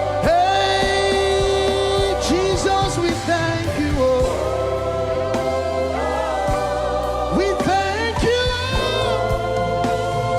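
Live gospel worship music: voices singing long held, wavering notes of a thanksgiving song over a band with steady low bass.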